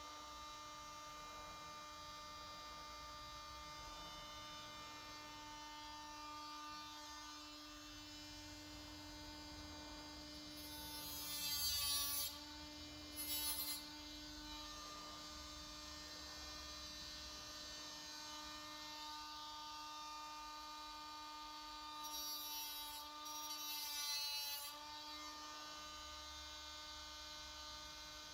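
Small cordless grinder running steadily with a high motor whine. Twice, about halfway through and again near the end, it is pressed onto the plastic grille frame and grinds noisily for a few seconds, the motor pitch dipping under the load.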